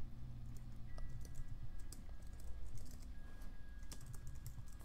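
Computer keyboard typing: irregular, separate keystroke clicks as a line of code is typed.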